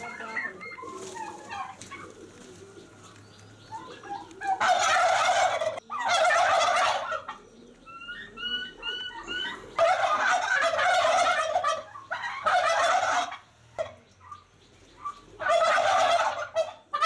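A flock of domestic turkeys calling: toms gobbling in about five loud bursts, each a second or two long, with softer short high calls from the flock between them.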